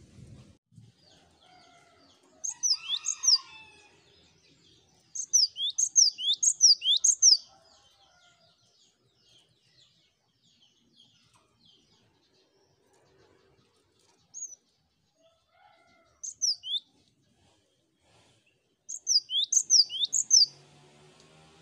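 Cinereous tit singing in quick bouts of sharp, high, downward-sliding notes, with softer chattering between; the main bouts come about three seconds in, around six seconds in and near the end.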